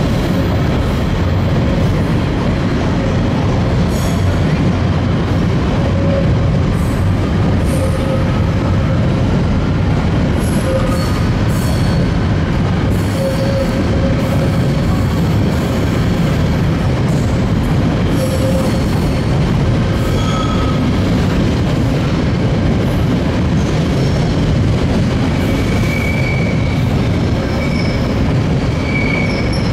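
Long freight train of high-sided box wagons rolling steadily past: a loud, continuous rumble of wheels on rail. Short high wheel squeals come and go throughout, with light clicks over the rail joints.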